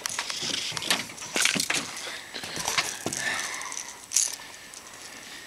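Handling noise of a hook being worked out of a bass's mouth: scattered clicks, small rattles and rustling, with a sharper rattle about four seconds in.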